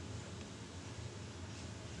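Steady low hum with a constant hiss: the quiet background of the shop, with no distinct strokes or knocks.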